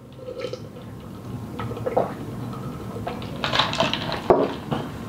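A person drinking from a plastic cup, with slurping and swallowing sounds, the loudest stretch about three and a half seconds in. Near the end there is one sharp knock.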